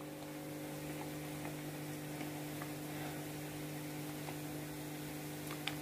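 Steady electrical mains hum, several even tones held without change, with a few faint clicks.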